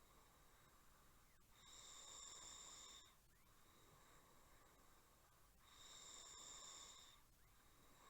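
A person snoring faintly: two snores about four seconds apart, each lasting about a second and a half.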